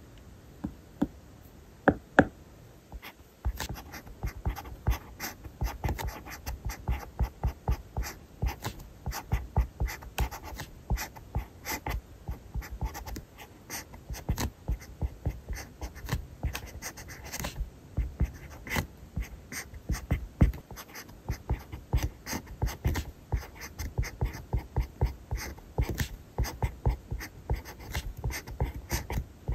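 Pen writing on paper: a few sharp taps in the first two seconds, then a steady run of quick scratchy strokes, several a second.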